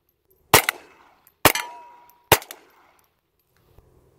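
Intratec Tec-22 pistol firing three .22 LR shots a little under a second apart, each with a short ringing tail, then falling silent: the pistol has jammed with a failure to feed.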